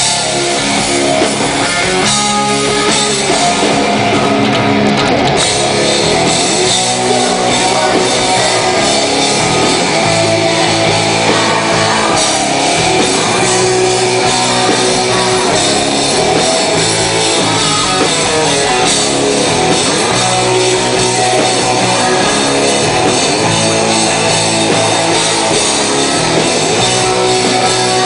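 Hard rock band playing live at a soundcheck, with electric guitars over a drum kit, loud and steady.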